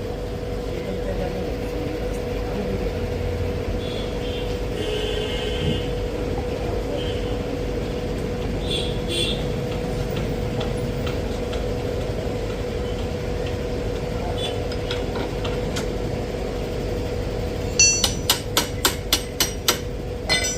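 Steady hum with workshop noise, then near the end a quick run of about eight sharp knocks, some three or four a second, as tools work on the motorcycle's front wheel during refitting.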